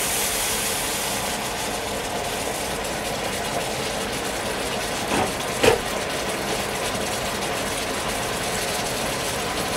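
Water boiling hard in a very hot frying pan just after boiling water is poured in from a kettle: a steady bubbling hiss. There are two short knocks a little after five seconds in.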